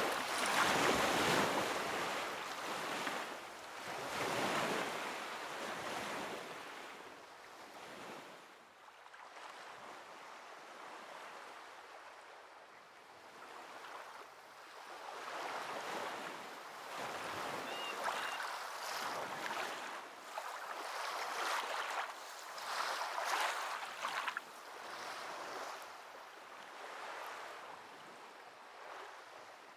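Ocean waves washing in, a rushing noise that swells and fades in irregular surges every few seconds.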